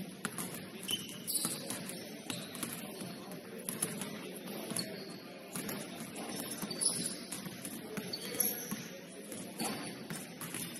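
Indoor basketball gym during play: a ball bouncing on the court, short high squeaks and knocks, and indistinct voices.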